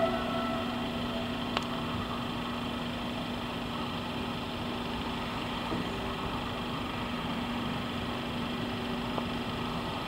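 V100-type diesel locomotive's engine running steadily at low revs while hauling a freight train slowly, with one steady droning tone. A short falling squeal is heard at the very start, and a single click about one and a half seconds in.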